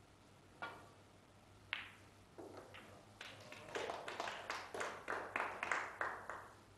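A few people clapping in a small room: scattered single claps at first, then a short patter of applause that dies away near the end.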